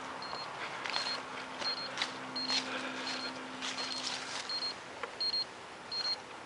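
Short high electronic beeps repeating evenly, about one every 0.7 seconds, over soft irregular footsteps swishing through grass.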